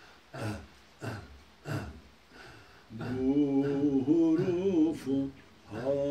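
A man singing an unaccompanied Turkish Sufi hymn (ilahi). It opens with a few short breathy grunts about two-thirds of a second apart, then from about halfway a loud held, ornamented melody on a sustained vowel.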